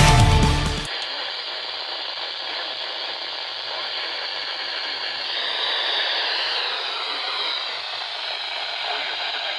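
Music cuts off about a second in, followed by a steady hiss of static from a weather radio receiver tuned to a broadcast.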